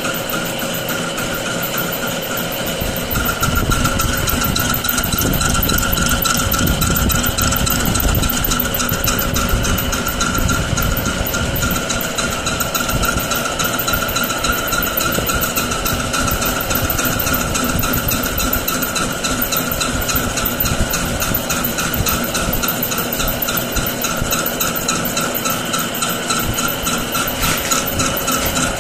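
Manual lathe running: a steady mechanical hum with a constant whine from the motor and gearing, its low rumble heavier for several seconds from about three seconds in.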